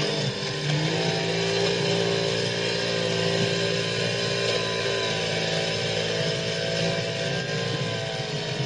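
Legged robot dog's power unit running with a steady mechanical drone, one even pitch throughout.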